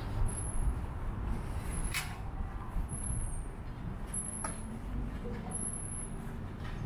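Street traffic: a steady low rumble of passing vehicles, with two short sharp clicks, one about two seconds in and one about four and a half seconds in.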